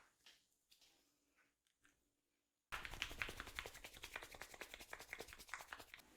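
A few faint clicks, then, about two and a half seconds in, a fast run of sharp taps and crackles starts suddenly, around ten a second, from massage work on a person's head and hair.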